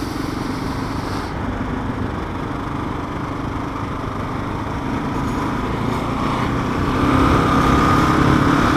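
Kawasaki KLR650 dual-sport motorcycle's single-cylinder engine running steadily at road speed, heard from on the bike; it gets louder about seven seconds in.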